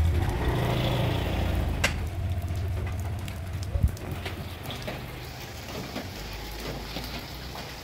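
A motor vehicle's engine rumbling low, fading away over the first four seconds or so, with two sharp knocks about two seconds apart. Steady rain on wet pavement hisses under it and carries on after the engine has faded.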